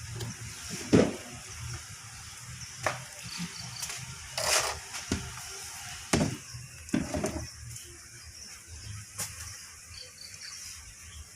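Quail pecking and scrabbling at black soldier fly maggots: scattered, irregular sharp taps and knocks over a steady hiss.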